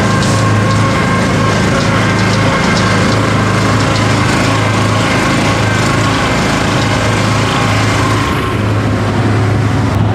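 A small gasoline engine running steadily at a constant speed, with a strong even hum; its higher sounds ease off a little near the end.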